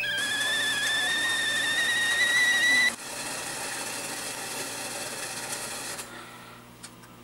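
Stovetop kettle whistling at the boil, its single high whistle creeping slowly up in pitch, then cutting off sharply about three seconds in. A steady hiss follows for about three seconds before it fades.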